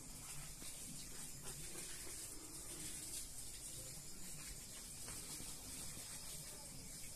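Quiet room tone: a steady high hiss with a faint low murmur underneath, and no distinct sound events.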